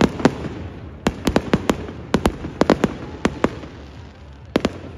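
Fireworks bursting in the sky: a fast string of sharp bangs, then a lull of about a second before two more bangs near the end.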